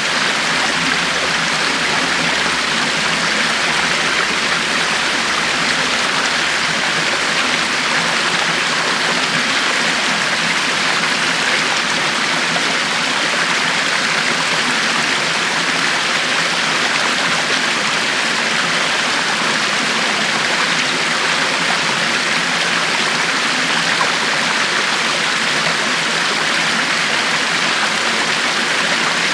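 A river flowing steadily, its water rushing and babbling without a break.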